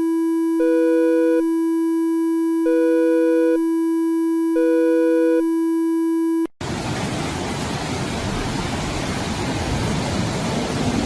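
Synthesized emergency alert tone: a steady low drone with a higher tone sounding over it three times, about once every two seconds. It cuts off abruptly about six seconds in, and a loud rushing noise takes over, with a faint rising tone near the end.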